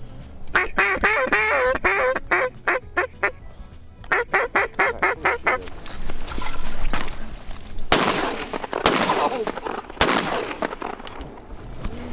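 Mallard duck call blown in two quacking runs of about ten and eight notes, followed by rustling and then three loud shotgun shots about a second apart near the end.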